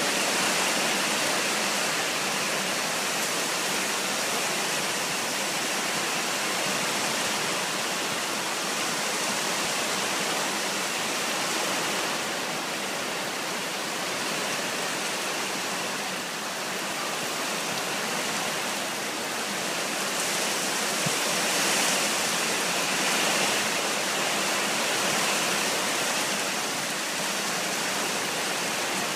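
Torrential rain pouring down in a dense, steady hiss that swells a little now and then.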